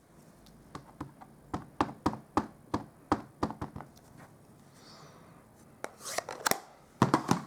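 Repeated light tapping, about two to three taps a second: a rubber stamp being dabbed onto an ink pad to ink it up. Near the end come two quick clusters of louder clacks.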